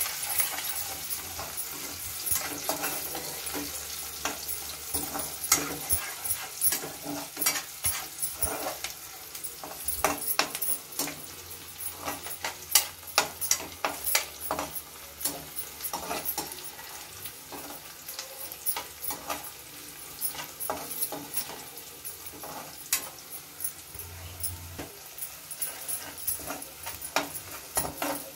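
Chopped vegetables sizzling in hot oil in a metal kadai, with frequent irregular scrapes and clacks as a spatula stirs them against the pan.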